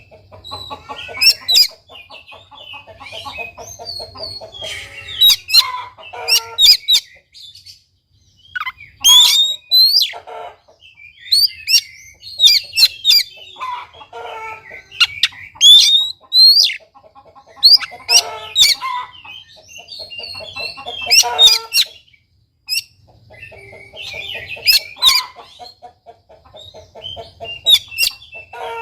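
Oriental magpie-robin singing loudly and continuously: sharp, high whistled notes in repeated phrases every few seconds, mixed with runs of lower, rapid clucking notes.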